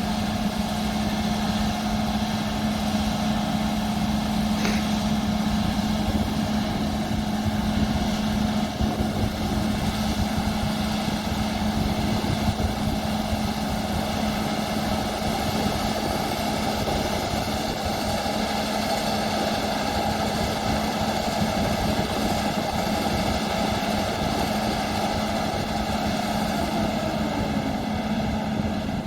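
Combine harvester running steadily at working speed, a constant engine drone with a strong low hum and the rush of the threshing machinery.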